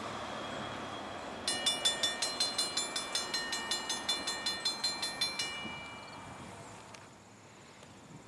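Railroad grade-crossing bell ringing fast and evenly, about five strokes a second, for roughly four seconds and then stopping, over the fading rumble of a train that has just passed.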